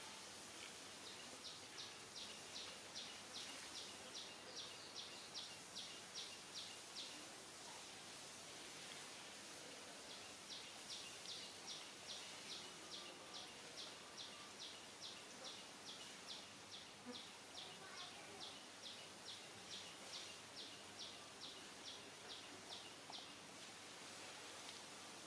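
Faint, high chirps repeated evenly about two and a half times a second, in two long runs with a pause of a few seconds between them: a small animal's call over steady outdoor background hiss.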